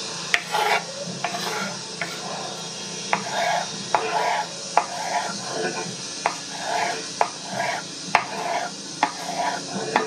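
Chef's knife dicing a brown onion on a wooden cutting board: sharp knife taps on the board at an uneven pace of about one a second, each with a short crunch through the onion, over a steady background hiss.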